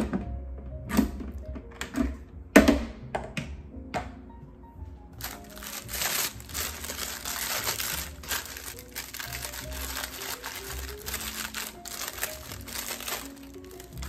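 A few sharp knocks of a food processor's plastic lid being handled, then the plastic sleeve of a graham cracker packet crinkling for several seconds as it is opened and the crackers are pulled out. Background music plays throughout.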